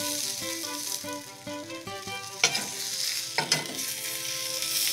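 Fried potatoes, peppers and onions sizzling in a hot stainless-steel skillet as a metal spoon stirs and scoops through them, with two louder spoon scrapes in the middle, a second apart. Soft background music plays underneath.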